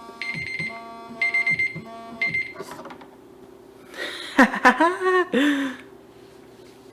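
Electronic timer alarm beeping in quick repeated groups, signalling that the one-minute drawing time is up. A few seconds later a man gives a short wordless vocal exclamation.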